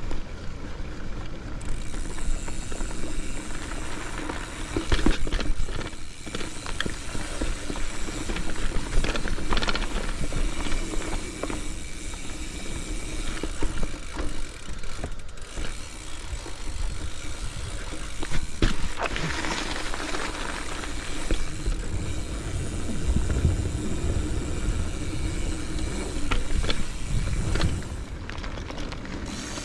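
Mountain bike riding over a dirt singletrack trail: tyres crunching and the bike rattling, with a sharp clatter over bumps now and then. A low rumble underneath sounds like wind on the microphone.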